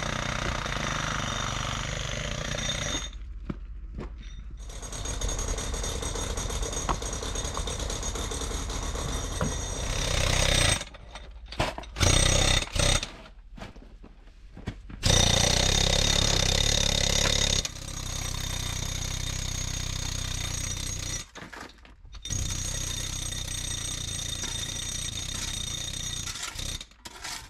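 Jackhammer breaking up rock, running in long stretches with brief stops and restarts several times.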